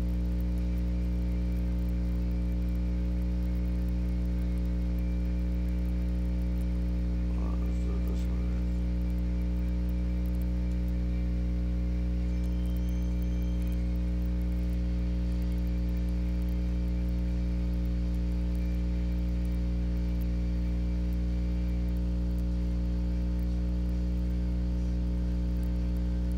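Steady electrical mains hum with a buzz, a stack of unchanging low tones. A faint, brief extra sound comes about eight seconds in.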